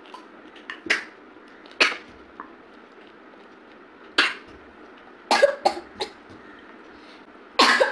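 A girl coughing in about seven short, sharp bursts, spaced unevenly, the last ones coming quickly together and loudest near the end: coughing on food caught in her throat.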